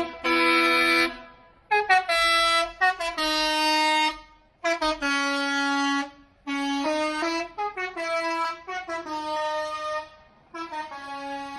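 A tune played on a horn: a run of short and held pitched notes with brief pauses between phrases.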